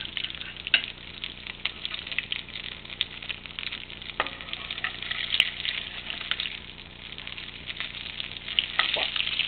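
A fish cake frying in shallow oil in a nonstick pan: a steady sizzle with dense crackling and a few sharper pops.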